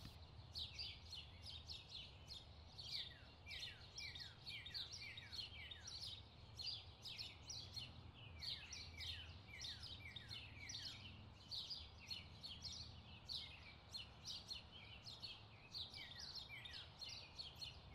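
Faint birdsong: many short, quick chirps falling in pitch, several a second, continuing without a break over a faint low hum.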